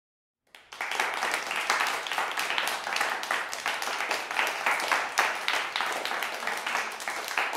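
Crowd applause, many hands clapping at a steady level, starting suddenly about half a second in after a moment of dead silence.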